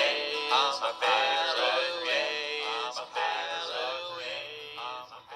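Closing bars of a children's Halloween song: a sung vocal line over the backing music, fading down toward the end.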